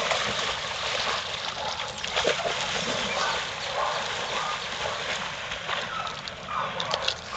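Dogs wading and swimming through pond water, the water splashing and sloshing steadily around them.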